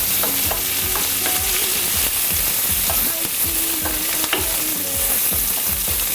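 Peppers, onions and garlic sizzling steadily as they sauté in a frying pan, with a few light knocks over the hiss.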